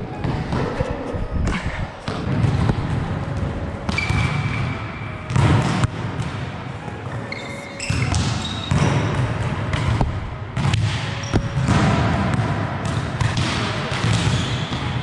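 Volleyballs being hit and bouncing on a sports-hall floor: many irregular slaps and thuds ringing around the large hall, with a few short high squeaks in between.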